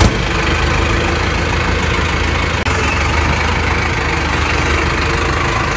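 Mahindra Arjun Novo 605 tractor's diesel engine idling steadily.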